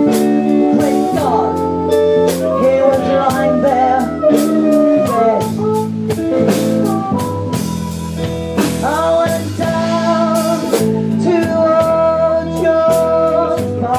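Live blues band playing: drum kit and electric guitar under an amplified harmonica with bending notes, and a woman singing.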